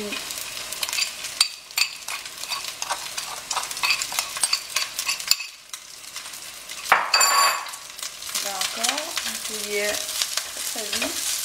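Cold leftover rice and scrambled egg sizzling in hot oil in a nonstick pan, with many quick clicks and scrapes of the rice being stirred and broken up. The sizzle drops out briefly a little past halfway, then comes back with a louder burst.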